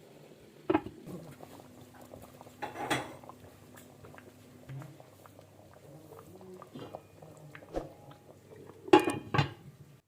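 Cookware and kitchen utensils clinking and knocking: a few scattered sharp knocks, with the loudest pair close together near the end.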